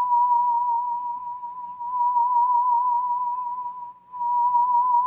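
D-Lev digital theremin holding one high, nearly pure note with a gentle vibrato. It dips out briefly about four seconds in, then comes back on the same pitch.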